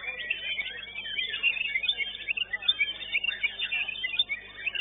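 White-rumped shama (murai batu) singing a rapid, varied stream of short chirps and whistles.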